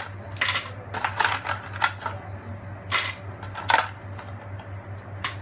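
Ice cubes dropped into a plastic blender jar on top of watermelon chunks, clattering in about six separate irregular knocks.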